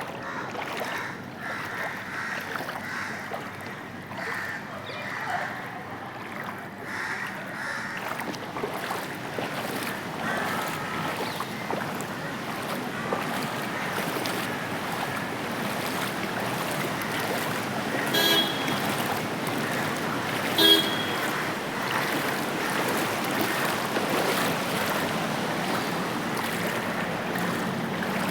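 Floodwater washing and sloshing along a waterlogged city street with traffic, a steady rushing noise that slowly builds. Two short vehicle horn honks come about two-thirds of the way through.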